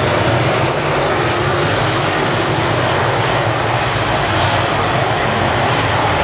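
Several dirt semi late model race cars' V8 engines running hard at racing speed together, a loud, steady mix of engine and exhaust noise.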